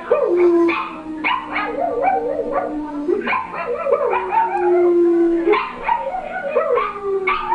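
A small dog howls along to a harmonica: the harmonica plays long held notes that change pitch a couple of times, while the dog's wavering howls rise and fall over them.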